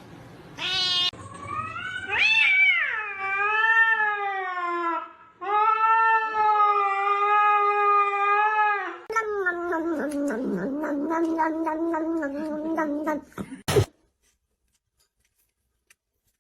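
Cat yowling: a short cry, then long drawn-out wavering yowls of several seconds each, the last one lower and pulsing, ending with a brief click.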